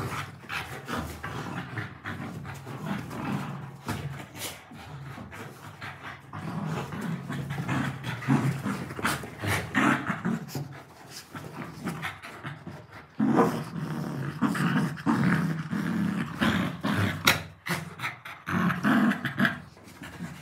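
A Labrador retriever and a German Shepherd puppy growling playfully in bursts while tugging at a pillow, with scattered short knocks throughout.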